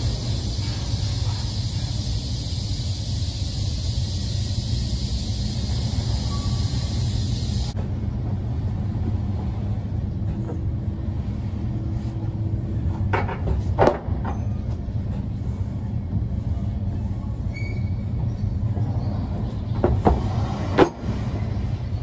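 Steady low rumble of an overhead crane and loading-bay machinery, with a hiss on top that cuts off suddenly about a third of the way in. A few sharp knocks come about two-thirds of the way through and again near the end, as wooden dunnage is handled on the steel trailer deck.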